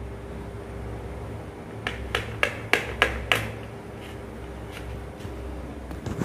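Knife cutting a soft, spongy dhokla into pieces on a paper plate, the blade tapping down onto the plate in a quick run of about six sharp clicks between two and three and a half seconds in, with a few fainter taps after.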